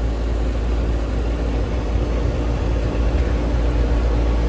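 A car on the move: a steady, heavy low rumble of engine and road noise, starting abruptly.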